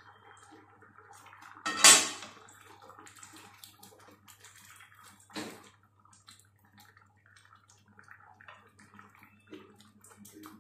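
A stainless steel pot lid is lifted off and set down with a loud clatter about two seconds in, then a wooden spatula stirs thick vegetable sambar in the pot, with soft wet stirring sounds and a single knock near the middle.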